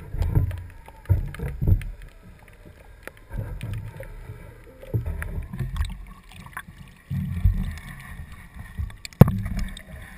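Low, irregular thumps and rumbles on a small boat, with scattered clicks and one sharp knock about nine seconds in.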